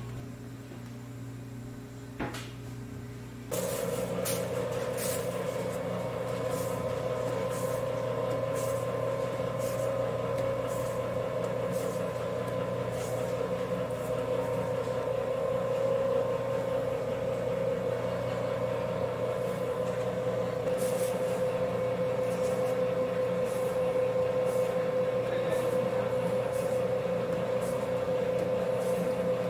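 A steady mechanical hum that starts abruptly about three and a half seconds in and holds an even tone, with faint scattered clicks over it.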